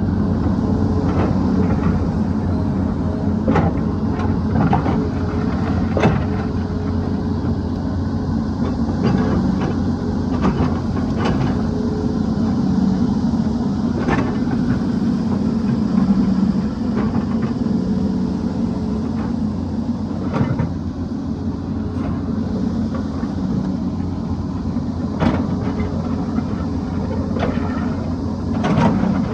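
Excavator's diesel engine running steadily under load, with repeated sharp knocks and clacks of the bucket striking and scraping rock.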